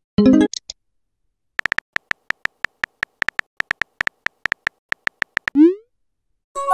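Chat-app sound effects from a texting-story animation: a short message pop just after the start, then a quick run of phone keyboard taps as a message is typed, ending with a rising whoosh as the message is sent about five and a half seconds in, and another short pop at the very end.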